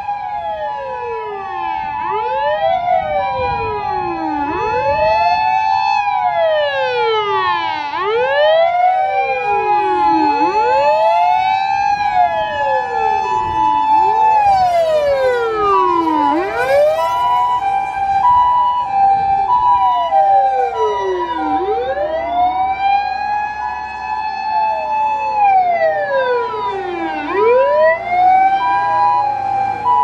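Japanese fire and emergency vehicles passing in convoy with sirens sounding. Several overlapping wailing sirens rise and fall every few seconds, with an ambulance's alternating two-note "pee-po" tone running steadily through them.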